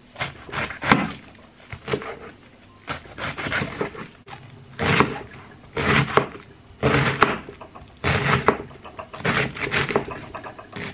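A kitchen knife slicing through a head of iceberg lettuce on a wooden cutting board, one cut about every second.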